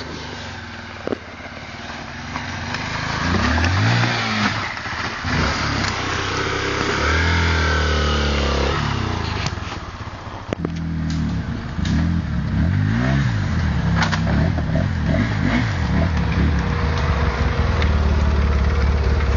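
Dirt bike engine revving up and down several times, settling to a steady speed near the end, with a few sharp knocks.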